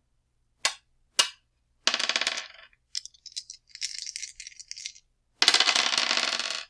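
Dice being shaken and rolled: two sharp single clacks, then a short rattling burst, a lighter and higher rattle for about two seconds, and a dense loud rattle near the end that cuts off suddenly.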